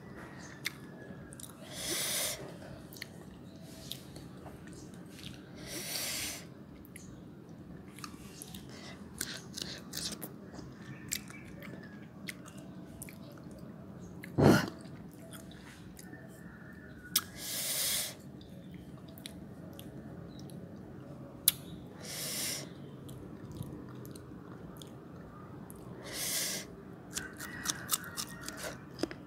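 Chewing of firm, unripe young mango slices close to the microphone, with wet mouth clicks and several short loud crunches. A single sharp thump about halfway through is the loudest sound.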